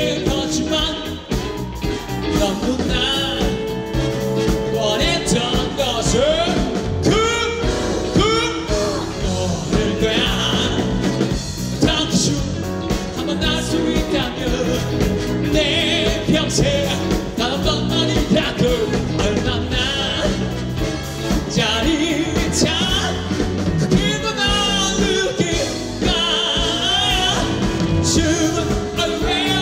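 A live rock band playing a song with a male lead singer, heard through a concert sound system.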